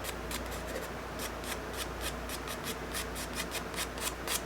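Charcoal scratching across drawing paper in quick, short, irregular strokes, several a second, as grass is sketched in.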